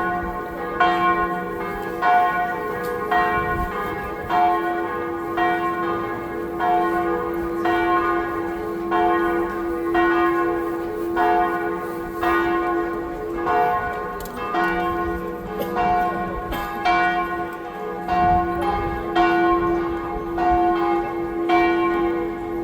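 Church bells of the Sacré-Cœur basilica ringing in a steady peal. A new stroke comes roughly every three-quarters of a second over a low hum that rings on between strokes.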